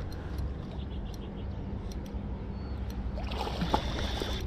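Brief splashing of water about three seconds in, sharpest near the end, over a steady low rumble.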